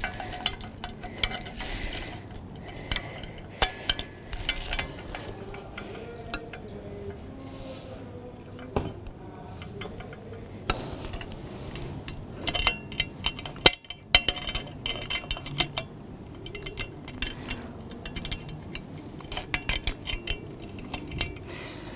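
Metal clinks and jingles of turnbuckle tension straps and locking carabiners being handled and clipped onto the eyes at the feet of a metal tripod, coming in irregular clusters.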